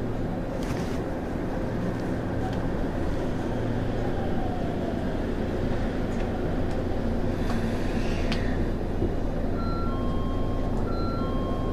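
JR 211 series 5000 electric multiple unit running along the line, heard aboard: a steady rumble of wheels on rail with the traction motors under field-added excitation control. A few short ringing tones repeat near the end.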